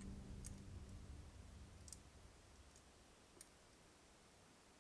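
A few faint, sharp clicks of steel tweezers against small plastic model-kit parts, while background music fades out over the first two seconds.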